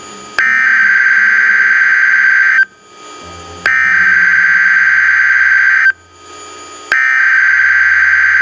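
Emergency Alert System SAME header tones over NOAA Weather Radio: three harsh digital data bursts, each about two seconds long with about a second between them. They mark the start of an alert, here an Amber Alert for a child abduction emergency.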